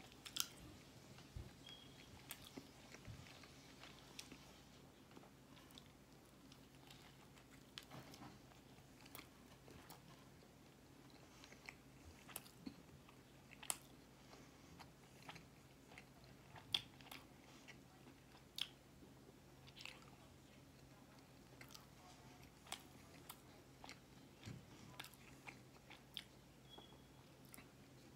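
Close-miked chewing and mouth sounds of a man eating a Filet-O-Fish sandwich: faint, scattered short wet clicks at an irregular pace, over a low steady hum.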